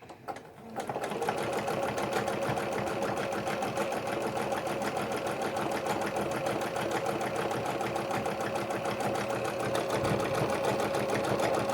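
Domestic sewing machine running steadily, stitching coiled rope with a zigzag stitch; it starts up about a second in.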